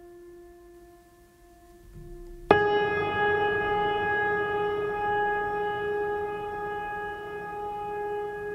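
Music with a ringing, bell-like tone. A held tone fades out, then about two and a half seconds in a new tone is struck sharply and rings on steadily with many overtones, slowly dying away.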